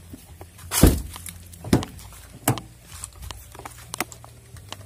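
Knocks and clatter of fishing gear being handled in a pickup truck's back seat, with one loud thump about a second in and a few lighter knocks and clicks after it.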